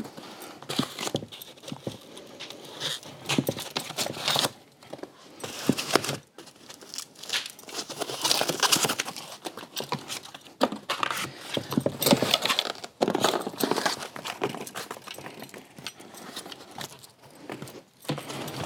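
Plastic packaging crinkling and rustling as it is cut and pulled off a pram frame, with many irregular clicks and knocks.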